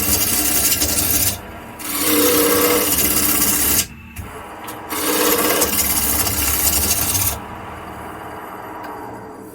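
Turning chisel cutting into a spinning black walnut and hemlock blank on a wood lathe, in three scraping passes of a second or two each. The lathe keeps running more quietly between the passes and alone near the end. The chisel is dulling on the very hard dry walnut and starting to catch.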